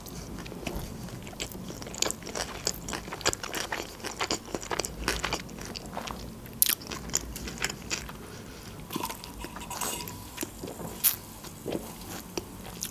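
Close-miked chewing of sushi rolls: a steady run of short wet clicks and crunches from the mouth.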